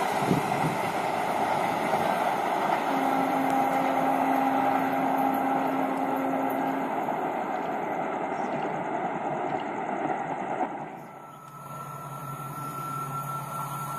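Passenger train's coaches rolling past on the rails, a steady rushing noise that eases slowly as the end of the train goes by and draws away. About eleven seconds in it drops off suddenly to a quieter steady hum with a thin high tone.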